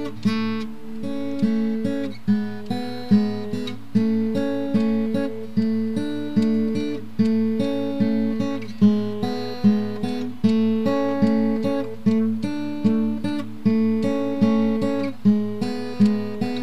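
Background music: plucked acoustic guitar notes in a steady, repeating rhythm.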